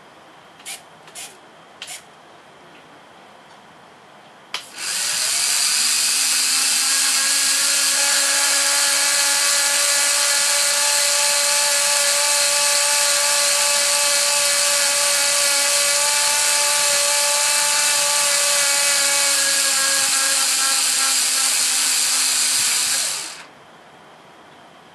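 Electric motor drive of a Carson Goldhofer STN-L3 model trailer's loading ramps, with a steady whine from its small gear motor as it lowers the two rear ramps for about eighteen seconds before cutting off. There are three light clicks about a second in, and another click just before the motor starts.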